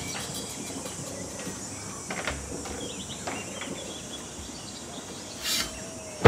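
Faint outdoor background noise with a few faint bird chirps, and a brief whoosh about five and a half seconds in.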